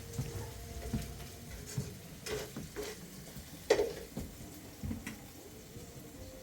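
Kitchen handling sounds: scattered light clinks and knocks of utensils and pots, with one sharper clink a little past the middle.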